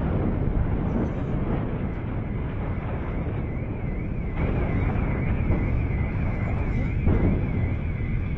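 Steady low rumble over the city in the aftermath of an airstrike, with a warbling alarm tone coming in about four seconds in.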